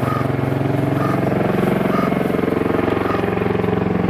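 V-22 Osprey tiltrotor flying low overhead, its proprotors and engines making a loud, steady, deep throbbing drone with a fast, even rotor pulse.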